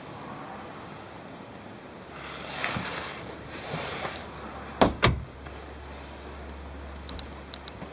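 Rustling and handling noise from a moving handheld camera, with two sharp knocks close together about five seconds in, over a low steady hum.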